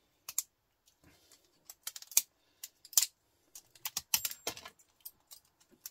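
Pliers snapping and crunching plastic and bits off scrap electrical parts to free the brass: irregular sharp clicks and cracks with small pieces clattering, the loudest about two and three seconds in and a quick run of them around four seconds.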